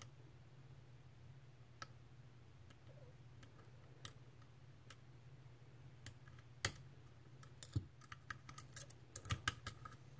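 Lock pick and tension wrench working the pins of a Medeco M3 high-security lock: scattered light clicks, one sharper click about two-thirds through and a quick run of clicks near the end, over a steady low hum.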